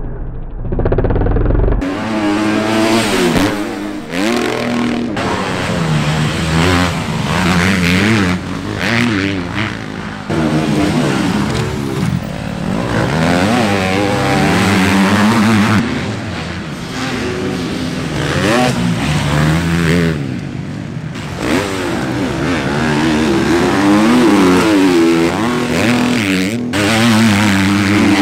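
Husqvarna factory MX2 250cc four-stroke motocross bikes being ridden hard on a dirt track, the engines revving up and down as they accelerate and shift through the gears. The sound changes abruptly several times.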